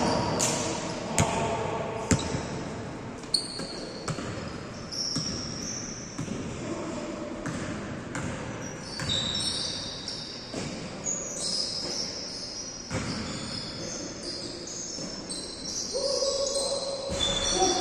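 Basketball game in a large echoing gym. A ball thuds and bounces on the hard court at irregular intervals, and sneakers squeak often. Players' voices call out near the end.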